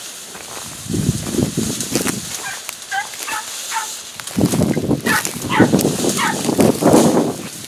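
Podenco Andaluz hunting dogs giving short, high yelps, about three a second, each falling in pitch. Loud rustling and footsteps through dense vegetation join in about four seconds in.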